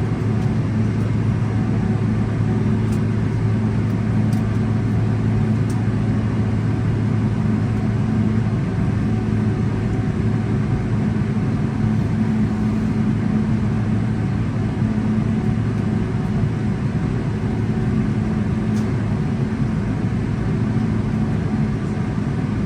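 Steady low drone inside the cabin of a Boeing 777-300ER taxiing after landing: an even hum with a few fixed low tones over a constant rush, with a few faint ticks.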